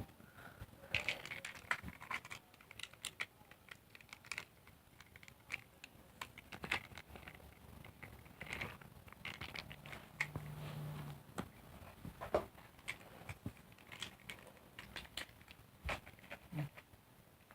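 Light, irregular clicks, taps and scrapes of plastic toys being handled, with a short low hum about ten seconds in.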